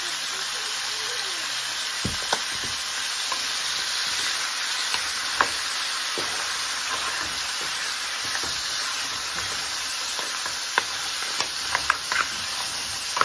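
Pieces of pork backbone frying in a little oil in a hot pan, a steady sizzle, with scattered clicks and knocks as a wooden spoon stirs and turns the meat, more of them near the end.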